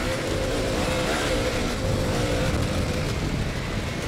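Jeep Wrangler JL Rubicon and Harley-Davidson Pan America 1250 motorcycle accelerating hard side by side across loose sand in a drag race. An engine holds a steady high note under a dense rushing noise.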